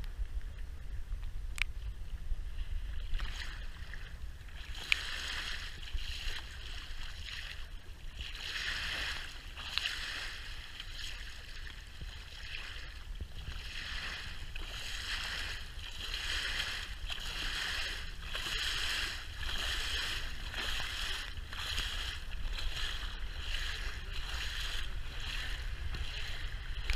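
RIB boat under way: its engine gives a steady low drone, while water rushes and hisses along the hull in surges that swell and fade about once a second.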